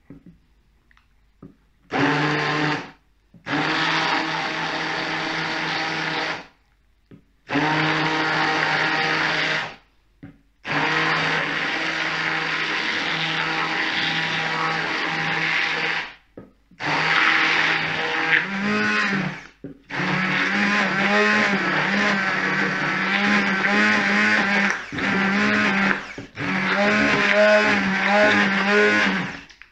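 Hand-held immersion blender motor running in about seven bursts of a few seconds each, with short stops between, as it blends a bowl of thick chocolate mousse. The motor's pitch wavers in the later runs.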